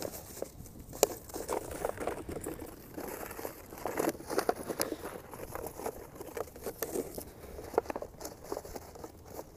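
Footsteps crunching in snow: an irregular run of short crunches and sharp clicks.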